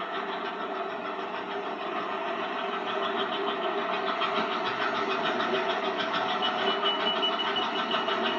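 Toy electric steam locomotive running on its track: a steady whirring rattle of the motor and wheels with a fast even clicking, growing a little louder. A thin high whine comes in near the end.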